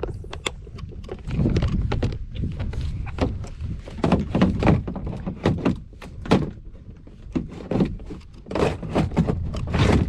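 Irregular knocks and thunks against a plastic kayak, dozens of them with no steady rhythm, over a low rumble of handling noise on the microphone.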